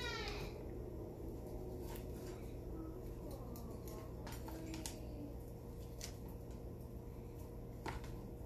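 Kitchen knife deboning a raw fox squirrel on a plastic cutting board: faint wet cutting and scraping of meat from bone, with a few light clicks of the blade against bone or board. A steady low hum runs underneath.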